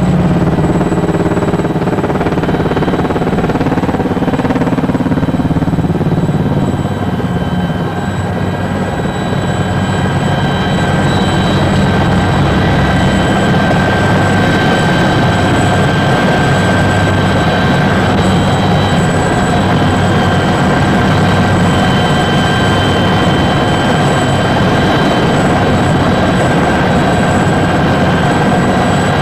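Helicopter turbine and rotor noise heard from inside the cabin: a loud, steady drone with a high, steady whine over it. The level dips briefly about seven seconds in.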